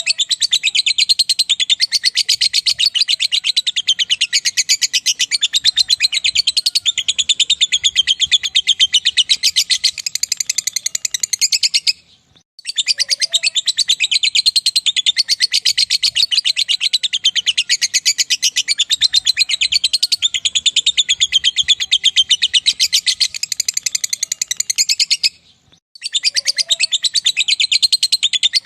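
Lovebird singing a long 'ngekek': a rapid, unbroken, high-pitched chattering trill in bouts of about twelve seconds, broken by short pauses about twelve seconds in and near the end.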